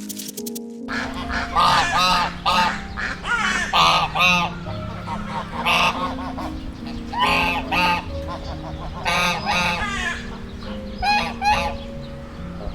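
Geese honking, a run of short repeated calls that starts about a second in and keeps going, some calls overlapping.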